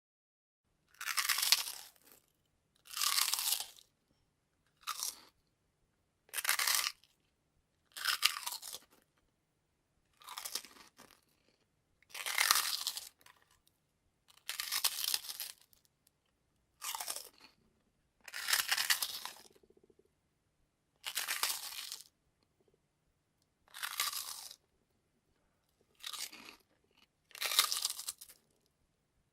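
Bites into crispy prawn crackers: about fourteen separate loud, crackly crunches, each the first bite into a fresh cracker, with short silent gaps between them.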